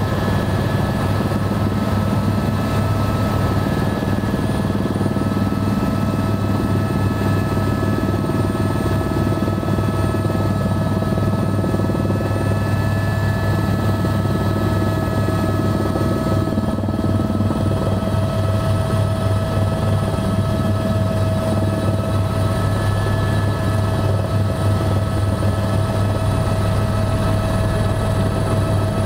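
Helicopter turbine engine and rotors heard from inside the cabin while descending to land: a steady, loud drone with a constant whine riding over it.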